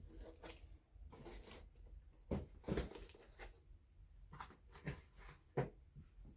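Handling noises: a few light knocks and rustles as a boxed tool and its cardboard packaging are moved and set down, with the sharpest knocks around the middle and one near the end.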